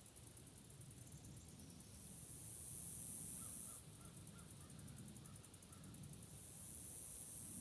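Forest ambience with a string of distant crow caws in the middle, over a high-pitched hiss that switches every couple of seconds to a rapid ticking trill.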